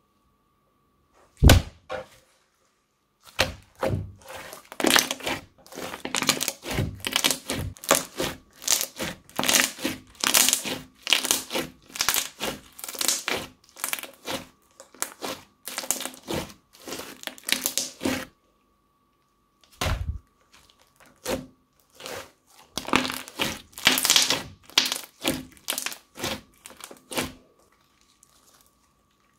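Thick crunchy slime being kneaded, squeezed and stretched by hand, giving dense runs of sharp crackles and pops. One single loud pop comes about a second and a half in, then close crackling for about fifteen seconds, a short pause, and a second run of crackling.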